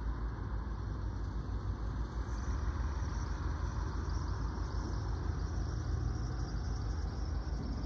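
Low, steady rumble of a distant diesel freight locomotive running as it slowly approaches.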